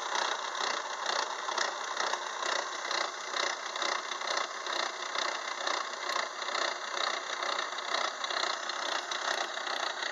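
Metal lathe running with a gear-cutting attachment, the gear cutter chattering as it cuts into the gear blank before it is fully engaged: a steady mechanical clatter.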